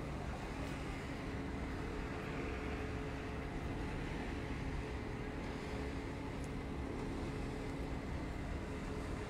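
Steady low background rumble with a faint, even hum running through it. No splash or animal sound stands out.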